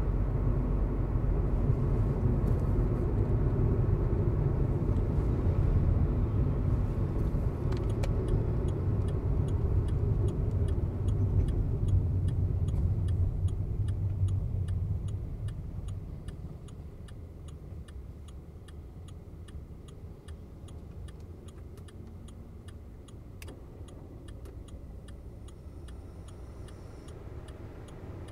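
Inside the cabin of a Volkswagen Vento TSI in traffic: engine and road rumble that dies down about halfway through as the car slows to a near stop. From about a third of the way in, the turn-signal indicator ticks steadily.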